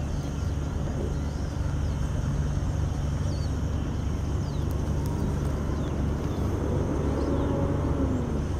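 Diesel locomotives idling, a steady low rumble, with a faint tone that falls in pitch about seven seconds in.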